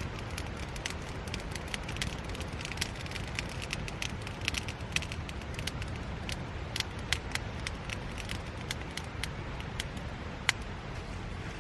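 Wood fire crackling and popping in a fire pit: irregular sharp pops over a steady low rumble, with one louder pop near the end.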